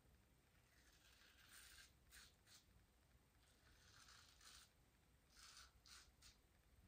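Faint swishing strokes of a fan-shaped synthetic shaving brush working soap lather, about eight short strokes at uneven intervals.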